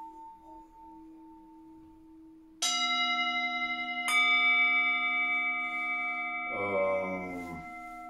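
Tibetan singing bowls resting on a person's back, struck with a mallet twice, about two and a half and four seconds in. Each strike leaves several steady overtones that ring on over the fading hum of an earlier strike. About two-thirds through comes a brief wavering buzz.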